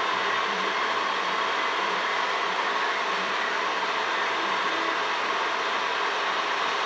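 Crystal QUAD 3D printer running a print job, giving off a steady whirring noise with faint low notes coming and going underneath.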